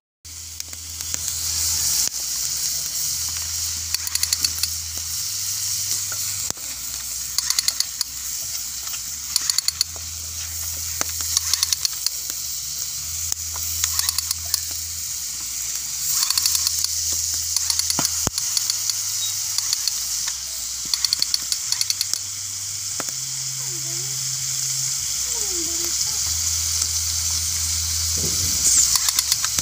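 Sago grubs (palm weevil larvae) sizzling as they fry in oil in an iron wok, with a steady hiss and clusters of sharp crackles every few seconds as they are stirred.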